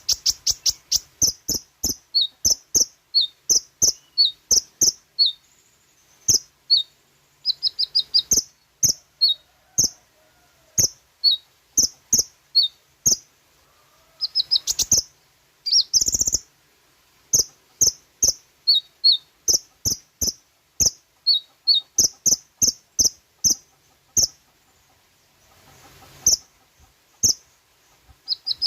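Olive-backed sunbird (kolibri ninja) singing: a long run of short, sharp, high-pitched chirps, two to three a second, broken by quick trilled runs and brief pauses.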